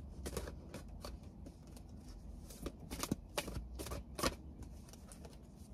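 Tarot deck being shuffled and handled by hand: faint, irregular card flicks and taps, with a few sharper snaps around the middle.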